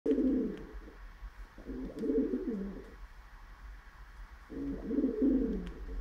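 Male pigeon cooing three times, each a low rolling coo of about a second, as he courts and mounts a dog's paws.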